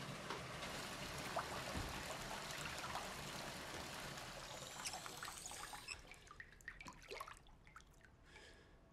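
Water running from a bath tap into a filled bathtub, stopping about six seconds in, followed by scattered drips and small splashes of water.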